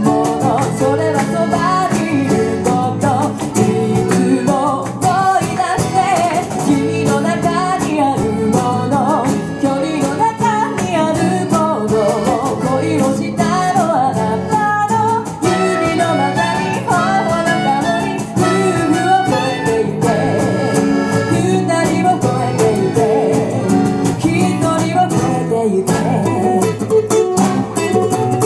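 Live band playing a song: a woman singing over accordion, electric bass, acoustic guitar and saxophone.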